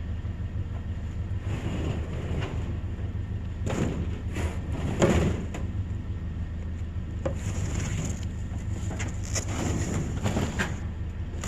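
A vehicle's engine runs steadily under a series of irregular knocks, clunks and scrapes, the loudest about five seconds in.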